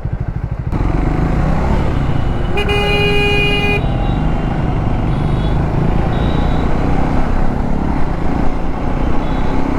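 Triumph Scrambler 400 X's single-cylinder engine running in city traffic, with road and traffic noise; the engine's even pulse gives way to louder running just under a second in. A vehicle horn honks once for a little over a second about two and a half seconds in.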